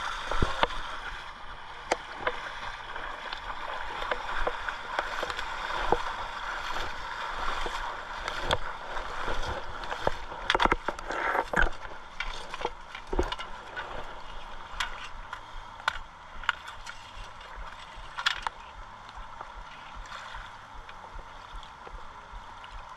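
Shallow river current running and splashing around the waders at the bank, with frequent sharp knocks and splashes as a netted sockeye salmon is handled at the water's edge. The knocks and splashes are busiest in the first half and thin out near the end.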